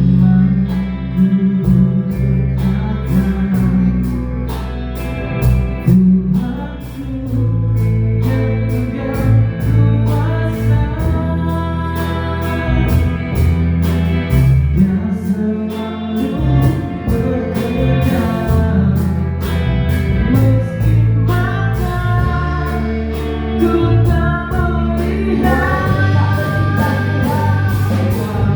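Live praise band playing a gospel worship song at a sound check, with a steady drum beat, bass and a sung melody that comes in clearly about eight seconds in.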